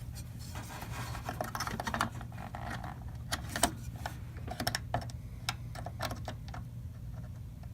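Scattered small clicks and taps of fingers working inside an open desktop computer case at the coin-cell BIOS battery and its metal retaining clip, over a steady low hum.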